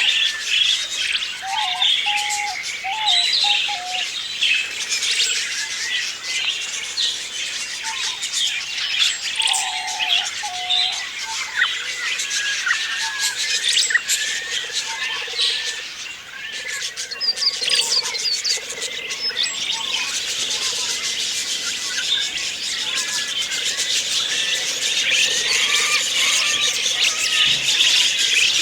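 A flock of budgerigars chattering: many overlapping chirps and warbles, with the chatter growing denser and a little louder in the last third.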